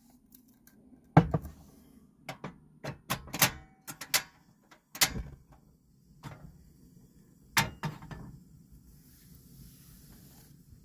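Sharp clicks and knocks, a dozen or so over the first eight seconds, as a portable gas camping stove is clicked alight and a tin is set down on the counter. Then the lit burner gives a faint steady hiss.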